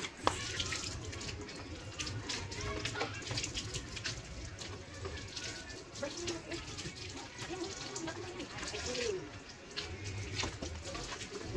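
Water from a garden hose splashing onto a motorcycle and wet concrete, with irregular splashes and drips throughout.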